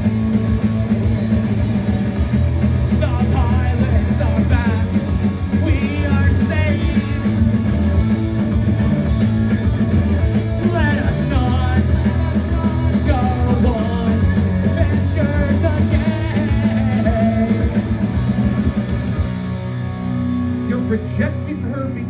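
Punk rock band playing live: guitars and a singer, loud and dense, with the full band dropping off about two and a half seconds before the end.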